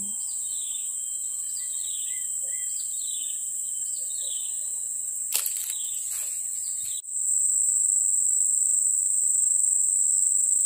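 Insects keeping up a steady, high-pitched buzzing drone. Over it, for the first half, a bird repeats a short falling call about once a second, and there is a single click about halfway.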